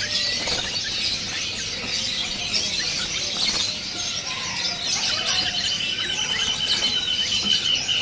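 Dense chirping and chatter of many caged songbirds, sooty-headed bulbuls among them, with wings fluttering in the cage. A thin, steady whistle joins about five seconds in and holds.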